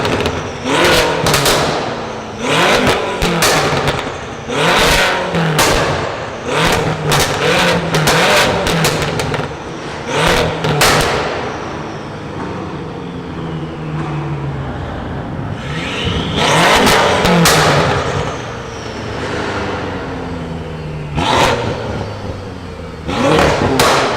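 Car engine revved again and again in short, sharp blips, a quick run of them in the first half, then a few more spaced out. Between revs the engine falls back in pitch toward idle.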